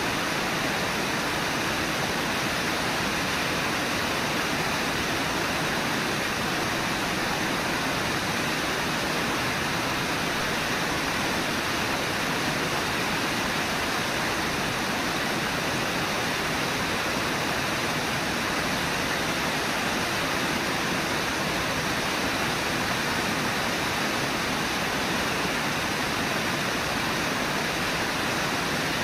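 Steady rush of white water at Brooks Falls on the Brooks River, an even, unbroken sound that does not change.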